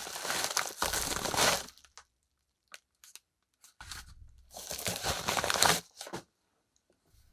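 Packaging being torn open and crumpled by hand: two stretches of rustling and tearing, the second starting almost four seconds in, with a few small clicks and crinkles between them.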